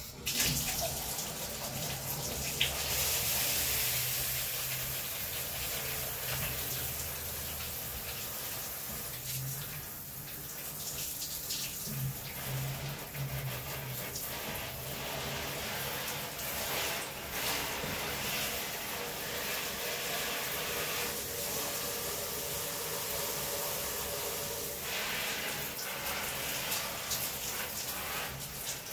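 Handheld shower head spraying water over houseplants in a bathtub: a steady hiss of spray on leaves and tub that rises and falls as the head is moved about.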